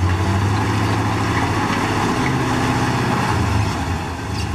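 ZIL-131 six-wheel-drive army truck's V8 petrol engine working under load as the truck climbs out of a ditch, its pitch rising and falling with the throttle; it eases off a little near the end.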